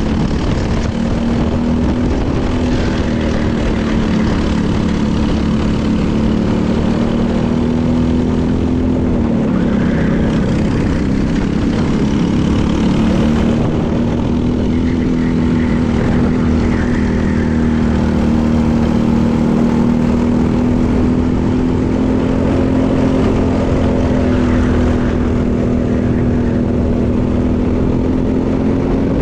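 Briggs & Stratton LO206 four-stroke single-cylinder kart engine running at race pace, heard onboard. The revs drop about nine seconds in, then climb back and rise gradually toward the end.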